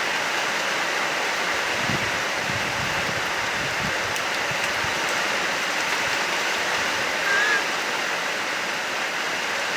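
Heavy rain falling steadily in a continuous hiss, with a few low rumbles between about two and four seconds in and one brief high note about seven and a half seconds in.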